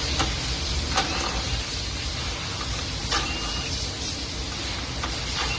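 Steady loud hissing background noise with a low rumble, broken by a few sharp clicks and knocks of hand work on plastic trim and fasteners.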